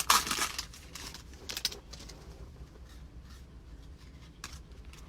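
Trading cards and a foil card-pack wrapper being handled: a short crinkle at the start, then faint scattered rustling and a few light taps.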